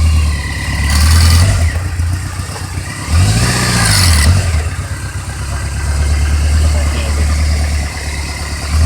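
2003 Kawasaki Voyager XII's V4 engine running at low rpm, revved briefly about three seconds in, its pitch rising and falling. A rattle comes and goes over the engine note. This is the low-rpm, clutch-released rattle that a mechanic put down to the starter chain and the owner wonders may be a loose alternator.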